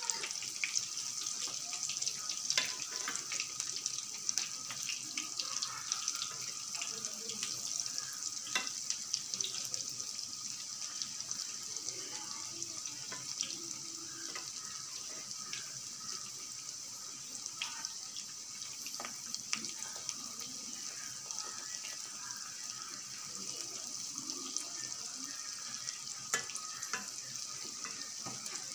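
Mutton keema vadas deep-frying in a pan of hot oil: a steady sizzling hiss with frequent small crackles and pops.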